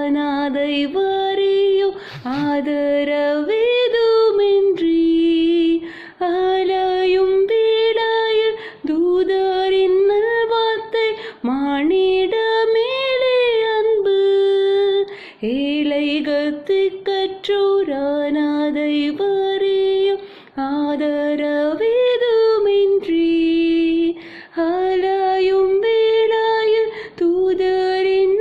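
A woman singing a Tamil Christmas carol solo and unaccompanied, in long held notes that glide between pitches, with short breaths between phrases.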